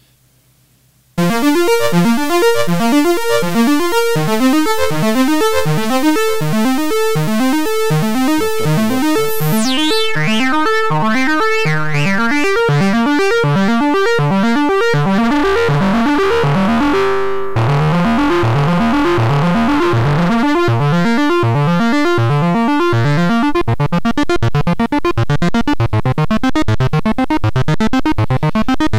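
Analog Moog synthesizers, a modded Werkstatt and a Little Phatty linked by MIDI, playing a fast arpeggiated sequence of notes that starts about a second in. The tone grows brighter midway and then closes down again, as the filter is swept, and the notes come more densely near the end.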